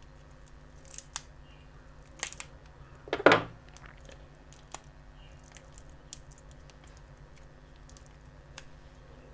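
Clicks and scrapes of a thin metal tool prying the protection circuit board off a Xiaomi lithium-ion polymer phone battery, with the loudest a short crack about three seconds in, followed by a few faint ticks.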